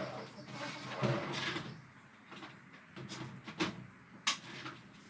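Kitchen handling noises: a muffled clatter about a second in, then two sharp clicks or knocks a little over half a second apart.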